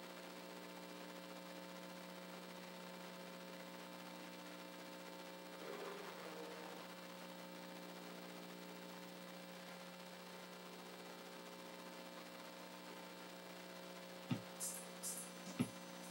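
Steady electrical mains hum, a low buzz with a stack of fixed tones above it, and a few light clicks near the end.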